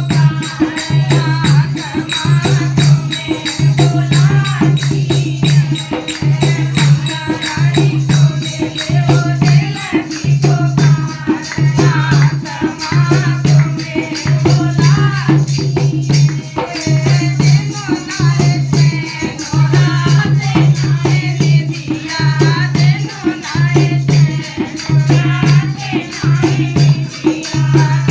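Hindi devotional bhajan music: a wavering melody over a quick shaker rhythm and a low drum beat about once a second.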